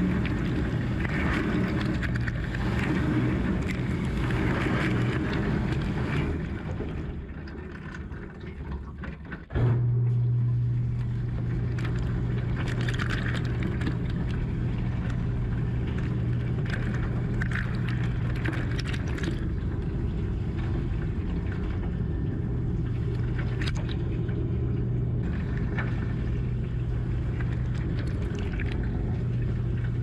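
Water spraying and splashing inside a running dishwasher, heard through a waterproof camera sitting in the tub. The spray dies away a few seconds in; then, just under ten seconds in, the wash pump starts abruptly with a steady low hum and the spraying resumes.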